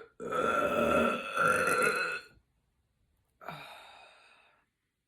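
A woman belching loudly for about two seconds, then a shorter, fainter belch about three and a half seconds in that trails off.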